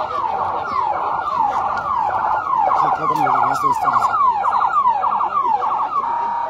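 Electronic siren of a motorcade escort vehicle sounding a rapid yelp, about two falling sweeps a second, with a second siren overlapping; near the end it holds briefly on one tone.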